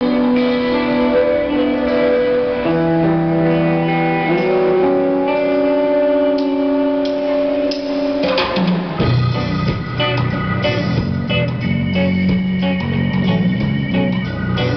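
Live rock band playing. It opens with held, slowly changing chords, then bass guitar, electric guitar and drum kit come in together about nine seconds in.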